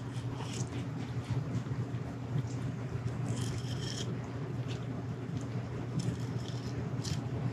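Fillet knife cutting along the backbone of a black sea bass, a few short scraping strokes as the blade works through the flesh toward the spine, over a steady low hum.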